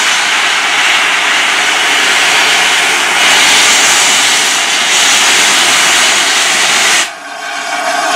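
Loud steady hiss of steam blowing from the open cylinder drain cocks of Peppercorn A1 Pacific steam locomotive 60163 Tornado as it starts away with its train. The hiss breaks off sharply about seven seconds in, then comes back.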